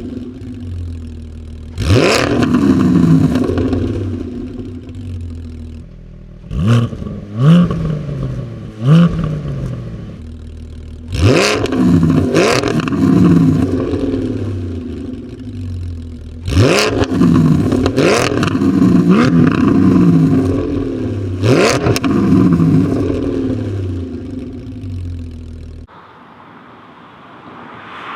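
Porsche 718 Cayman GT4's 4.0-litre flat-six idling while stationary and being blipped about ten times in short bursts, each rev rising quickly and falling back to idle. Near the end the sound drops away and a car can be heard approaching.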